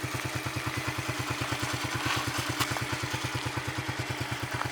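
Yamaha Crux's small single-cylinder four-stroke engine idling steadily, beating about ten times a second, just after being kick-started following many days of standing.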